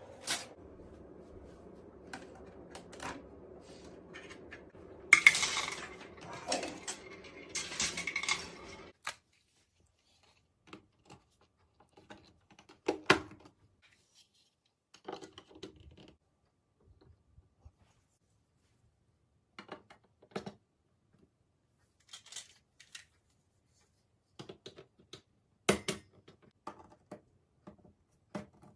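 Hard clicks and clattering of a marble run's pieces and marbles knocking together, with a denser rattling stretch about five to eight seconds in, then scattered single clicks.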